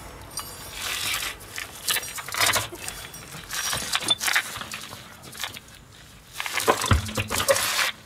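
Metallic clinking and clatter of the last wheel nut and wrench as the rear road wheel is taken off the hub, with a heavier knock near the end.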